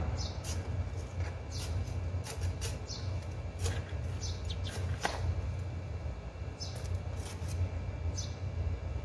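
Small hand trowel scraping and scooping potting soil in a plastic tub, a series of short scrapes, over a steady low hum.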